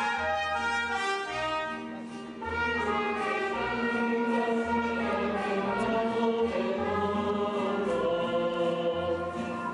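Brass band playing a tune: sustained horn notes over a low bass that pulses about once a second.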